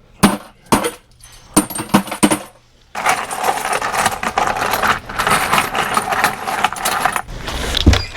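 Sharp metallic clinks, several in quick succession, then from about three seconds a longer stretch of continuous rattling, with a low rumble near the end.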